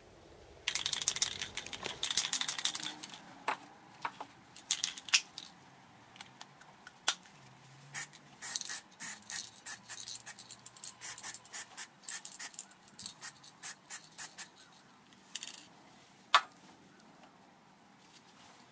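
Hand scraper working a metal casting flat: short rasping strokes, a quick run of them for about two seconds, then a long series of separate strokes about one or two a second.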